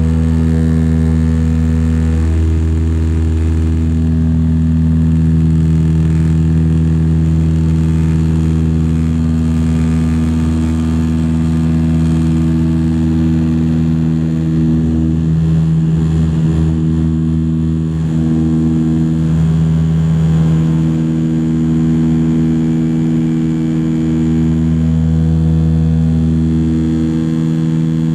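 Cabin noise of a de Havilland Canada Dash 8-100 twin turboprop from a seat near the propellers: a loud, steady propeller drone made of several held low tones.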